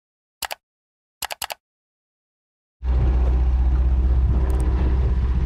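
A few short clicks in silence, then about three seconds in a boat's motor starts being heard running steadily, with a deep rumble of wind on the microphone.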